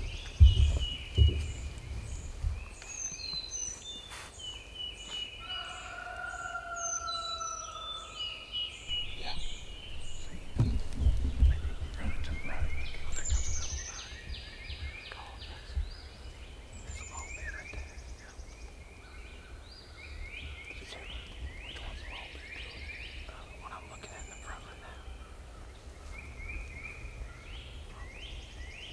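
Songbirds singing in woodland, short chirping phrases repeated again and again, with a wild turkey gobbling among them. A low rumble sits underneath, strongest near the start and again about ten to fourteen seconds in.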